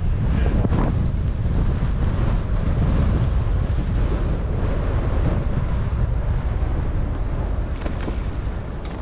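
Wind buffeting the microphone: a loud, uneven low rumble that eases a little near the end, with a couple of faint clicks near the end.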